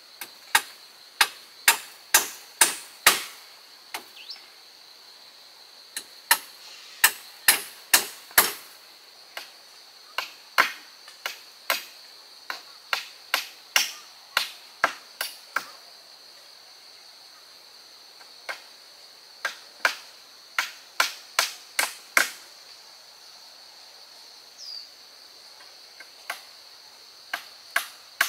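Repeated sharp blows of a hand tool on wood, in runs of several strokes at about two to three a second with short pauses between runs. A steady high insect drone carries on behind the blows.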